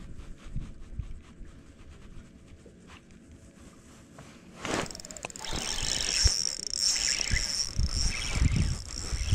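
Spinning reel being cranked to bring in a hooked smallmouth bass. A steady high whirring starts suddenly about halfway through, with low knocks from the rod being handled underneath.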